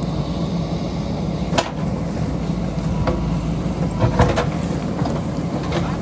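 JCB backhoe loader's diesel engine running steadily while the bucket digs into rocky soil, with sharp knocks and scrapes of the bucket on stones: one about a second and a half in, and several around four seconds in and near the end.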